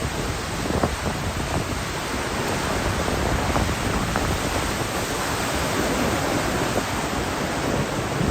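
Steady roar of rough surf and typhoon wind on the coast, an even hiss with no distinct single wave crashes.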